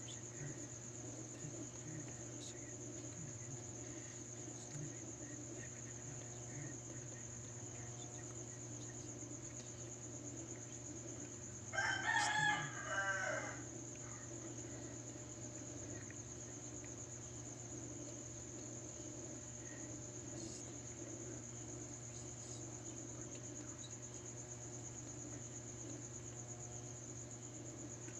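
A rooster crows once, about twelve seconds in, over a steady high chirring of crickets and a low steady hum.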